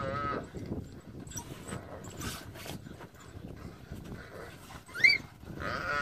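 Red lechwe antelope bleating in distress while African wild dogs bite at it: a wavering call fades out in the first half-second, a short sharp high squeal comes about five seconds in, and a long loud bawl starts near the end.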